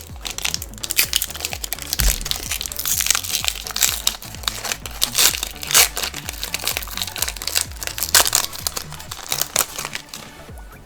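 Foil wrapper of a Pokémon Shining Legends booster pack crinkling and crackling as it is torn open and handled, ending shortly before the end. Background music plays underneath.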